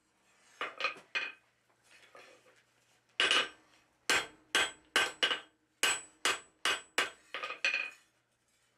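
Hand hammer forging a thin steel flat bar on an anvil: a dozen or so sharp blows, each ringing briefly, with a few near the start, a pause around two seconds in, then a steady run of about two to three blows a second.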